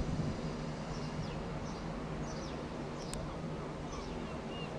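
Class 159 diesel multiple unit's engines running with a steady low drone as the train pulls away. Birds chirp repeatedly over it with short falling calls.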